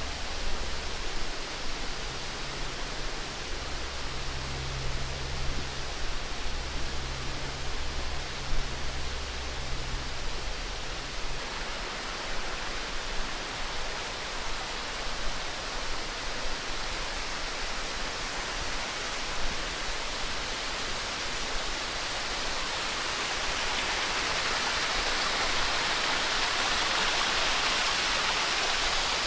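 Running water rushing steadily, as a stream or canal channel flows beside the trail, growing louder and brighter toward the end. A low steady hum underneath stops about eleven seconds in.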